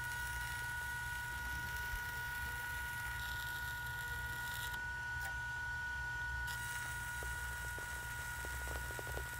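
Stick welding arc crackling steadily as the rod runs a weld along a seam of thick steel plate. A steady high whine of a few tones runs under it throughout.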